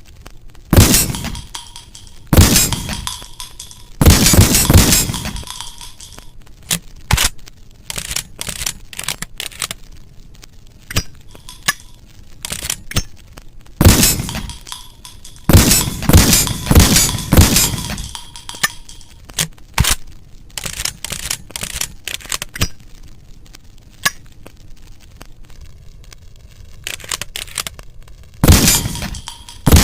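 Browning Auto-5 semi-automatic shotgun firing: loud shots with a ringing tail, grouped in clusters near the start, in the middle and near the end, with many lighter metallic clicks and clacks from the gun's action in between.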